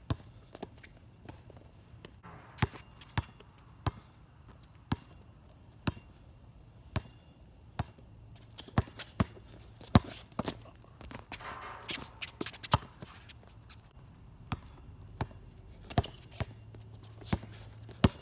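Basketball dribbled on an outdoor hard court: sharp single bounces every half second to a second, uneven in pace, with the players' footsteps and a brief scuffle of feet about twelve seconds in.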